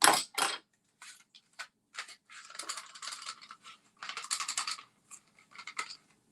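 A set of watercolor pencils being taken out and handled: two sharp clicks at the start, then scattered small clicks and two short bursts of rattling, scraping pencils.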